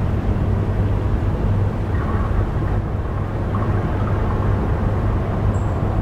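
Steady outdoor background ambience with a low hum, with no train horn sounding; faint brief tones come through about two seconds and three and a half seconds in.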